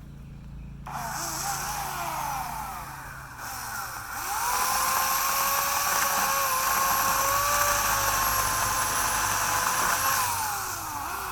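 Homelite 16-inch electric chainsaw motor running: a short burst about a second in that winds back down, then a longer run with a steady high whine for about six seconds, its pitch falling away as the trigger is released near the end.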